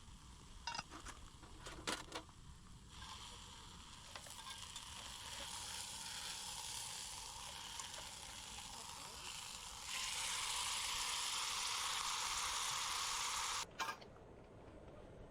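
Food sizzling in a hot pan or on a grill, with a few sharp clicks at the start. The sizzle builds, jumps louder about ten seconds in, then cuts off abruptly near the end.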